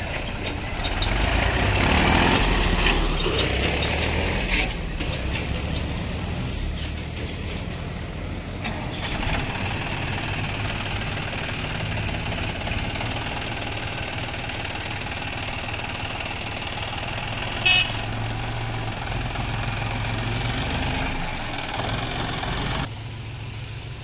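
Diesel engines of Mahindra and John Deere tractors running as they drive slowly past, one after another. A short horn beep sounds about three-quarters of the way through.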